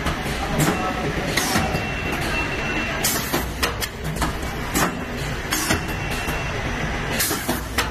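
Vertical form-fill-seal packing machine running while it fills and seals cooking oil pouches: a steady low mechanical hum, broken every second or so by short, sharp hissing clacks.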